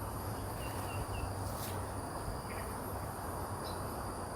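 Outdoor ambience: wind rumbling on the microphone, with a steady high insect drone and a few short bird chirps.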